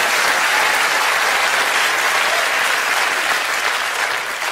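Audience applause, a steady dense clapping that begins to fade near the end.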